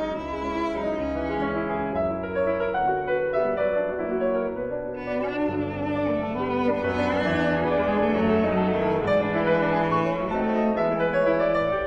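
Classical-style instrumental music: sustained bowed strings, cello and violin, with piano, growing fuller about five seconds in.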